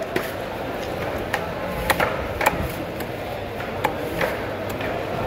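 Long knife cutting a raw tuna steak into cubes on a wooden chopping block: the blade knocks sharply on the wood about seven times, at uneven intervals, over steady background noise.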